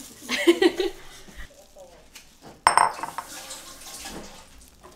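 Kitchen utensils being handled, with one sharp, ringing clink of a metal utensil against a bowl a little past halfway through. A short burst of voice comes near the start.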